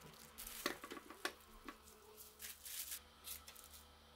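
Objects set down on a hard tabletop and a thin plastic bag handled: a few sharp knocks in the first second and a half, then crinkling and rustling of the plastic.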